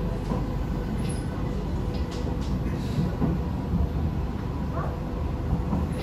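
Steady interior running noise of a C151A metro train travelling between stations: a low rumble of wheels on rail with a faint steady hum.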